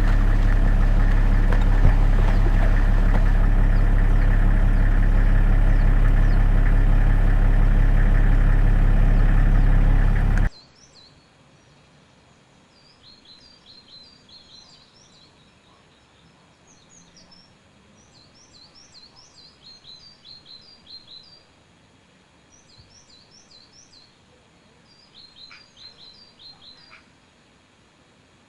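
A loud, steady low hum without breaks cuts off suddenly after about ten seconds. It gives way to quiet outdoor ambience with small birds chirping in runs of short, high, falling chirps.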